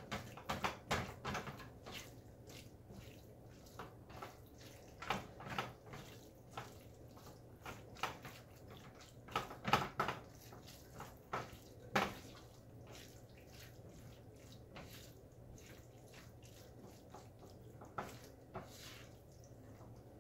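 Spatula stirring minced raw beef in a nonstick frying pan on the stove, with irregular soft taps and scrapes against the pan that come in a few short spells with quieter gaps between. The kitfo is being lightly warmed.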